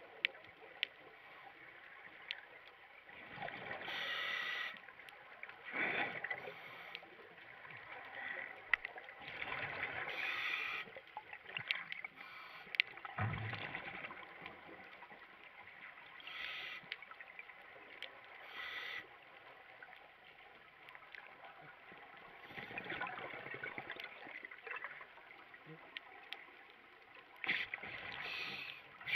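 Scuba diver breathing through a regulator, heard underwater: a burst of exhaled bubbles every few seconds, with scattered clicks between them.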